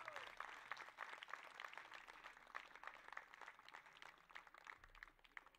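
Audience applauding: a dense patter of hand claps that thins out and fades away near the end.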